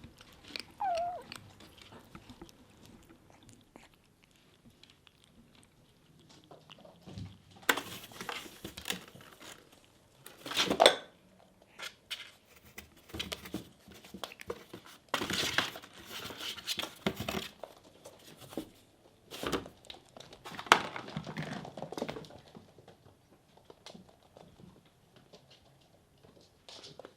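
Kitten crunching dry kibble from a bowl in several bursts of crackly chewing, with a short squeaky little noise about a second in.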